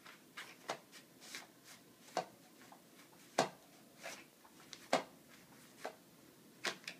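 Cats batting and pouncing at the nylon cover of a Cat's Meow motorised toy: a string of irregular sharp taps and rustles, with two louder slaps about a third and two-thirds of the way through.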